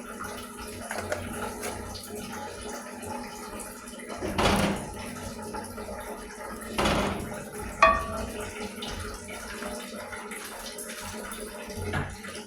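A pot of pumpkin cooking in water, with a steady hiss, two louder swishing swells from stirring about four and seven seconds in, and a single metal clink a little after the second.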